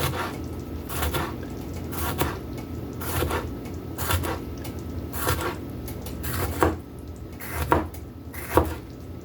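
Kitchen knife slicing a jalapeño on a wooden cutting board, a sharp tap of the blade on the board about once a second, nine cuts in all.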